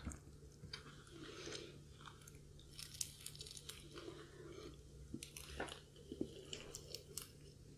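Crispy fried chicken crust crackling and crunching as a piece is torn apart by hand: faint, irregular crackles.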